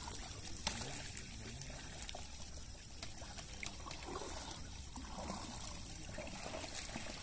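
Shallow pond water trickling and lightly splashing, with a few faint clicks.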